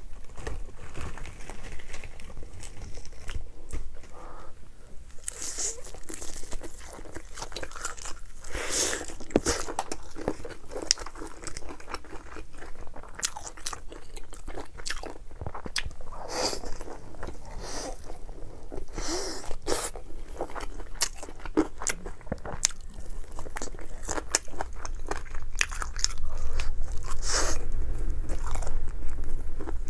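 Close-miked eating of crispy fried food: repeated loud crunching bites and chewing, with sharp crackles throughout.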